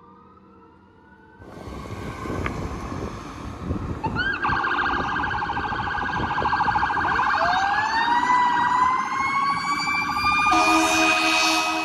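Fire engine sirens approaching: a fast-pulsing electronic siren tone with a siren winding up in a slow rising wail over it, and passing traffic underneath. Low horn blasts join near the end. A fainter siren glide is heard before a sudden cut about a second and a half in.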